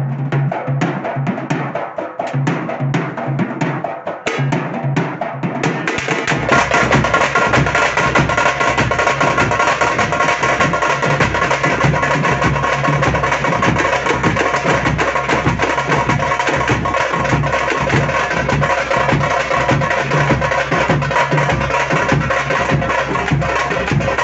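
Drum-led music: fast, dense drumming, with a heavy bass and steady held tones coming in about six seconds in.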